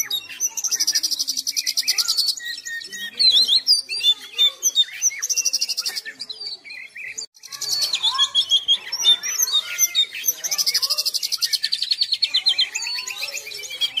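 Oriental magpie-robin singing continuously: a run of varied whistles and chirps broken by four long, very fast rattling trills.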